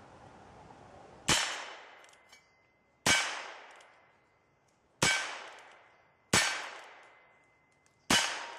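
Heritage Rough Rider single-action revolver fired five times at an uneven pace of one shot every one and a half to two seconds, each sharp crack trailing off in about a second of echo.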